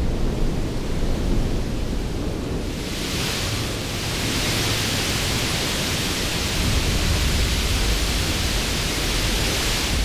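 Large ocean wave breaking: a deep rumble of surf with a hissing rush of spray and foam that swells about three seconds in and then holds steady.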